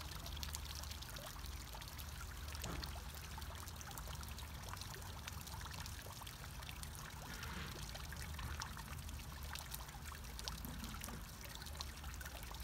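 Garden fountain with water spilling from a cast-iron upper bowl into the basin below: a steady trickling splash of many small drops, over a low steady rumble.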